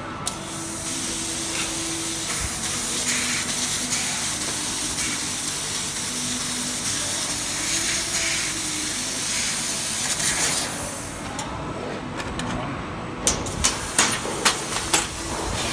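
500 W fiber laser cutting machine cutting sheet metal: a steady hiss that drops away for a moment about eleven seconds in, followed by several sharp clicks near the end.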